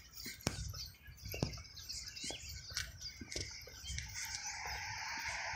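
Small birds chirping, with footsteps and faint clicks on a concrete sidewalk. From about four seconds in, a steady noise swells underneath.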